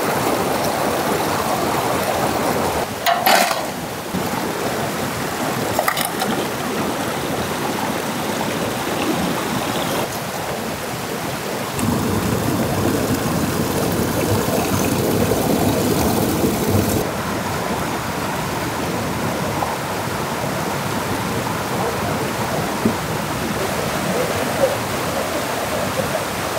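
River rapids rushing over rocks: a steady loud rush of water that shifts in tone a few times, with a brief louder burst about three seconds in and a smaller one about six seconds in.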